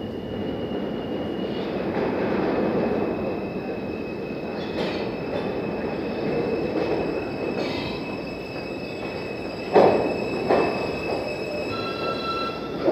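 New York City subway W train rumbling in through the tunnel toward the platform, with a thin steady wheel squeal. There are two loud clanks about ten seconds in, and near the end several steady whining tones set in as the train reaches the platform.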